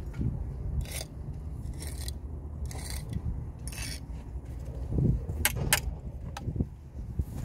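Steel brick jointer drawn along fresh mortar joints: a series of short, hissy scrapes about once a second, followed by a few sharp clicks near the end.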